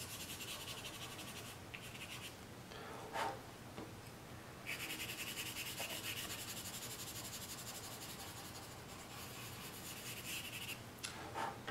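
Charcoal pencil held on its side, scratching quickly back and forth across drawing paper in short shading strokes. It breaks off twice in the first five seconds, with a brief soft knock about three seconds in.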